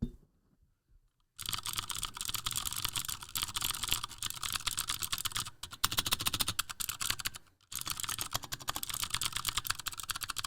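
Fast typing on a 60% mechanical keyboard with Cherry MX Green switches and PBT keycaps: loud, dense clicking. It starts about a second and a half in and breaks off briefly twice.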